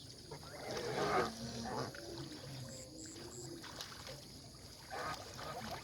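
Geese splashing and dabbling in water, with a few soft low goose calls.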